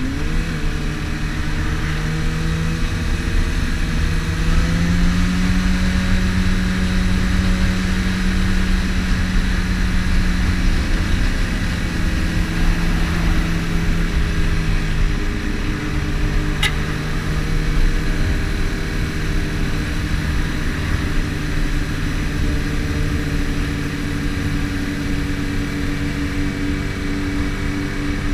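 Sport motorcycle's engine running at steady highway cruising speed, under heavy wind rumble on the bike-mounted microphone. The engine note rises a few seconds in and drops about halfway through.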